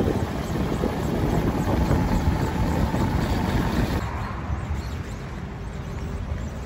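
Wind rumbling and buffeting on the microphone of a camera moving along the road, mixed with rolling road noise. The sound drops to a quieter, thinner rumble at a cut about four seconds in.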